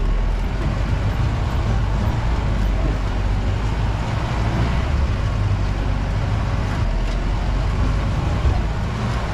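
Jeep engine running with steady, loud road noise on a rough off-road track, heard from on board the moving vehicle.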